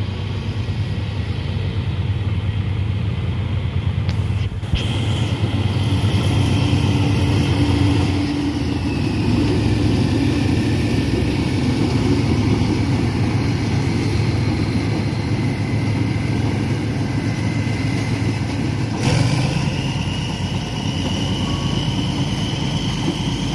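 Old GE diesel-electric locomotive's engine running steadily as it hauls a rake of passenger coaches slowly past. A thin high tone sits above the engine from about five seconds in, fades, and comes back more strongly near the end.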